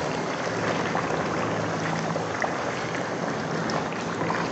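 Beef masala curry sizzling and bubbling in an aluminium pot on a gas stove as it is stirred with a wooden spoon, a steady crackle.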